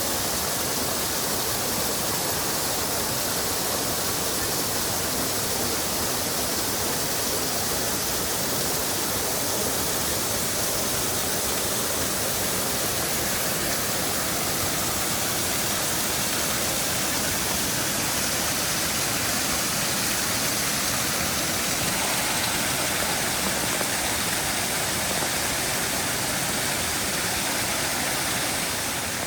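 Steady rush of Shiraito Falls, a wide, low curtain of spring water spilling over a rock face.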